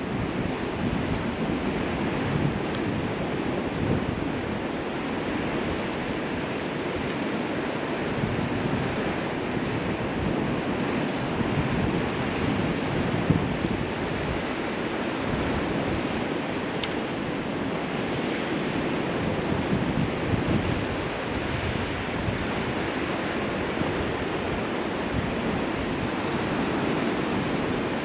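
Wind buffeting the microphone over the steady wash of the sea.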